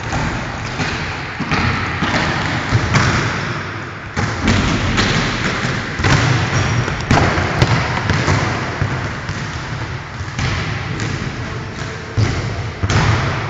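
Volleyballs being served and bouncing on a wooden gym floor: about a dozen irregular thuds of hand on ball and ball on floor, echoing in the hall.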